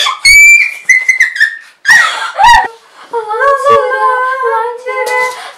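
Two girls singing a wordless tune together: short high-pitched notes at first, then from about three seconds in a longer sung passage with the voices holding and sliding their pitch.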